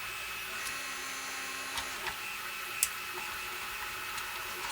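3D printer running steadily, with its stepper motors giving a constant whine of several thin tones. A few small clicks come over it, about two and three seconds in, as screws are taken out of the keyboard case.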